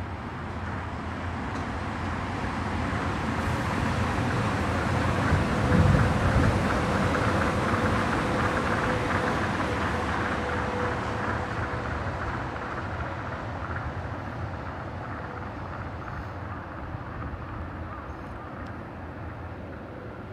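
Tokyo Monorail train passing on its elevated concrete guideway: a rushing rumble that swells to its loudest about six seconds in, with a steady hum, then slowly fades as the train moves away.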